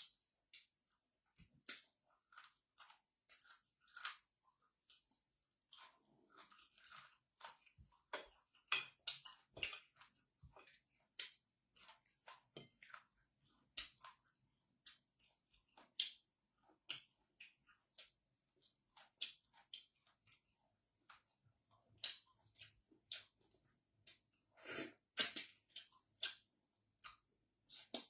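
A person chewing food close to the microphone: a run of short, irregular mouth clicks and smacks, about one or two a second, louder for a moment near the end.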